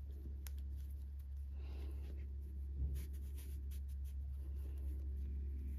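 Soft rustling and small ticks of knitted ribbon yarn being handled and pulled through the work to form a loop, with a steady low hum underneath.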